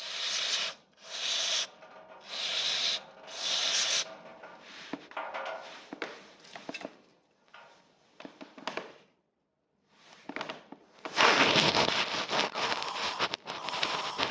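Hand scrubbing of a brake caliper slide pin being cleaned: four even back-and-forth rubbing strokes, then softer scraping with small clicks, and a louder spell of harsh, dense rubbing for about three seconds near the end.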